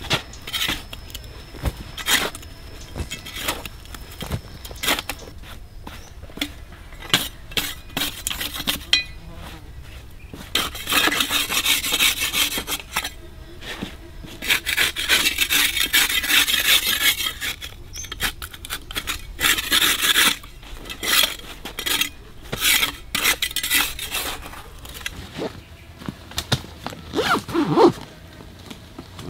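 Wood being worked with a hand tool: two runs of rapid rasping strokes, each a few seconds long, in the middle, amid scattered sharp knocks and clicks.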